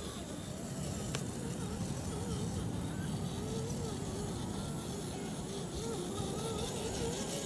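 Brushed electric motor and gear drivetrain of an RC rock crawler whining, its pitch wavering up and down as the throttle is worked at crawling speed, over steady low background noise. A single short click about a second in.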